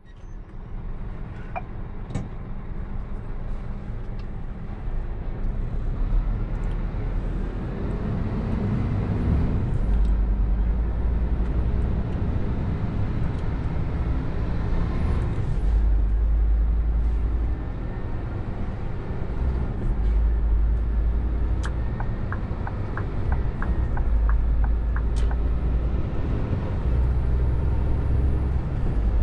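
Scania R410 truck's 13-litre straight-six diesel running under way while hauling a loaded tanker, a steady low rumble that swells and eases several times. Around three quarters of the way through, a quick run of about ten evenly spaced ticks.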